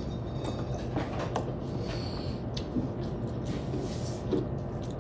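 Children eating noodles: faint slurps and occasional clicks of chopsticks and a fork, over a steady low hum.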